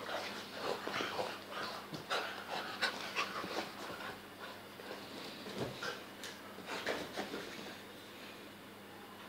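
A beagle and an American cocker spaniel play-wrestling: quick panting and snuffling with short bursts of scuffling, busiest in the first few seconds and quieter near the end.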